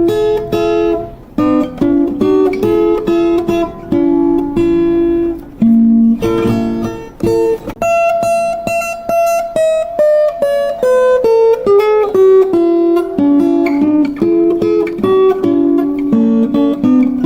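Acoustic plucked-string instrument playing an instrumental passage without singing: a quick melodic run of separately picked notes, with some strummed chords.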